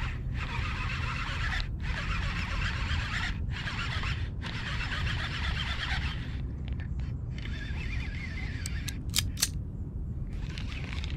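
Shimano Curado baitcasting reel being cranked to retrieve a squarebill crankbait: a fluttering gear whir broken by brief pauses, which stops about six seconds in. Low wind rumble sits on the microphone, and a few sharp clicks come about nine seconds in.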